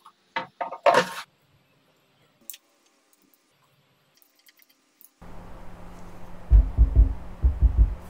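Several knocks and clicks as the plastic Bose subwoofer enclosure is gripped and moved. About five seconds in, bass-heavy music starts suddenly over a steady low hum, with heavy bass beats.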